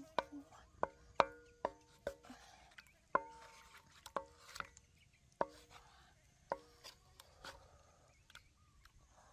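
Knife chopping food on a cutting board: about a dozen sharp, irregular strokes, each with a brief ring, spacing out after about seven seconds.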